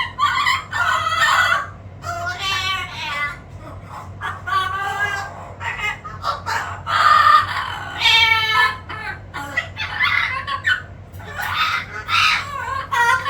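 Amazon parrot calling: a series of about ten loud, pitched squawks, roughly one a second.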